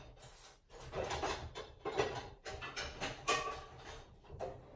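Kitchen things being rummaged through and handled: a run of irregular clatters, knocks and rustles, with a short ringing clink a little past three seconds in.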